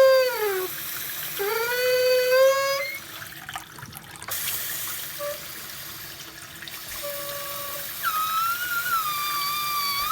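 Kitchen faucet running with a pitched squeal over the hiss of water. The squeal comes in several separate goes: the first slides down in pitch, the next ones hold steady, and a higher, wavering squeal comes near the end.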